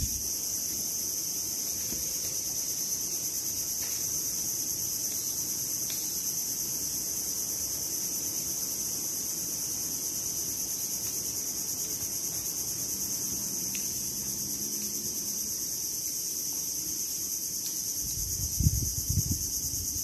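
Steady, unbroken high-pitched chorus of crickets. Near the end, low rumbling gusts of wind hit the microphone.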